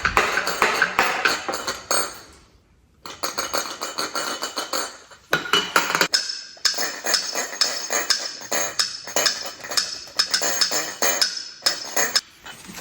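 Background music with a busy, clattering percussive beat; it drops out briefly about two seconds in, then comes back.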